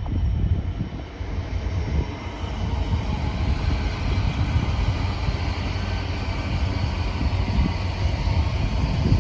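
LNER express train running through the station, a steady low rumble with wheel and rail noise that grows brighter from about two seconds in.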